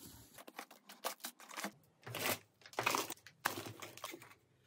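Plastic packaging crinkling and rustling in short irregular bursts as plastic-bagged parts are handled and lifted out of a cardboard box.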